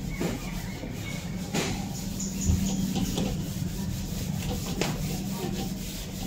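Steady low electrical hum with faint scraping noise and a few light taps.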